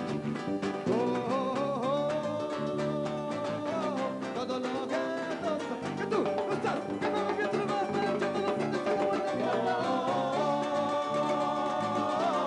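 Live rumba band playing: guitars and percussion keep a quick, even beat while a man sings lead.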